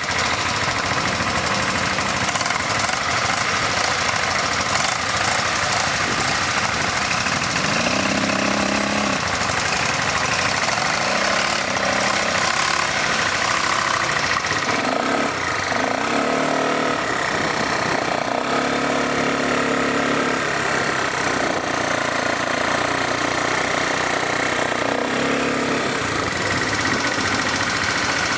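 ATV engine running during a ride, its note shifting up and down in pitch several times over a steady rush of noise.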